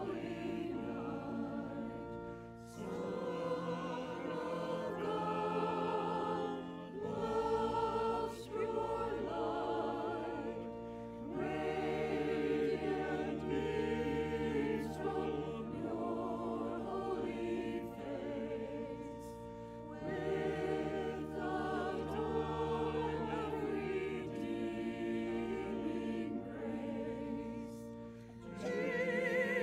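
A choir and congregation singing a hymn together, in phrases of about four seconds with short breaks between them, over sustained low accompanying notes.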